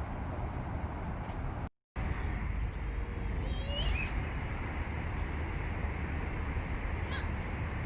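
Steady outdoor background rumble and hiss, broken by a sudden drop to silence for a split second just under two seconds in. A short high animal call comes about three and a half seconds in, with a fainter brief call near the end.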